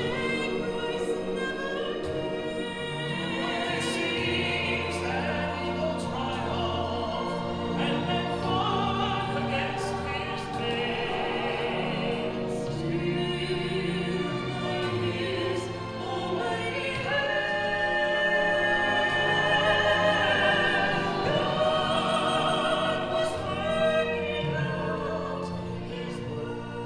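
Church choir singing a Christmas piece in long, sustained notes.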